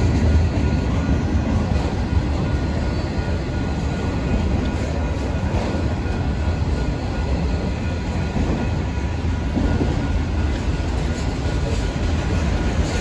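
Freight train of autorack cars rolling past: a continuous rumble of steel wheels on rail, with a faint thin steady high tone over it.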